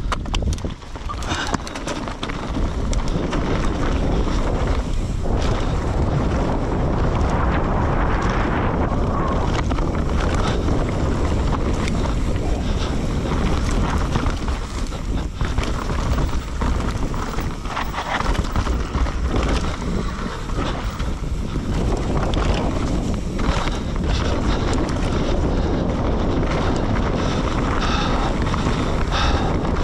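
Wind buffeting the rider's camera microphone, steady and loud, over a running enduro motorcycle.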